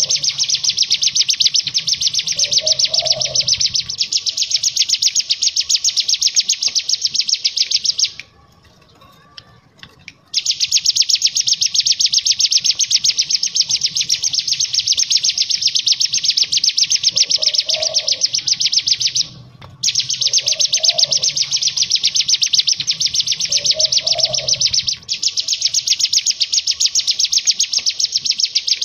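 Ciblek gunung (cigun, a small prinia) singing its fast rattling 'ngebren' song: long runs of very rapid high notes lasting several seconds each. The runs break off for about two seconds about eight seconds in, and briefly just before twenty seconds in.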